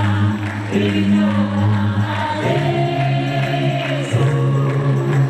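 Gospel music: a choir singing over a sustained low instrumental backing.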